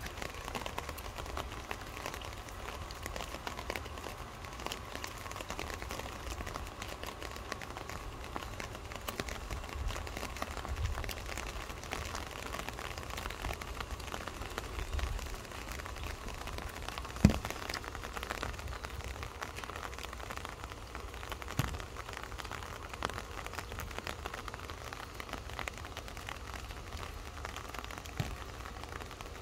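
Rain falling and rainwater dripping and trickling down a rain chain of metal cups, a steady patter dotted with small ticks. A few sharper taps stand out, the loudest about two-thirds of the way through.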